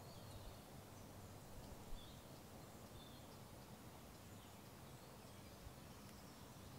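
Near silence: faint outdoor background noise with a few short, faint bird chirps.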